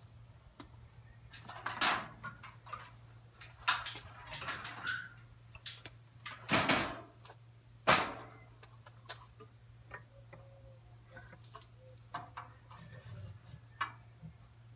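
Metal tri-fold motorcycle-ramp panels of a fold-out camper patio clanking and rattling as they are folded up on their hinges: a run of metallic knocks and clatters, the sharpest about eight seconds in, then a few light clicks.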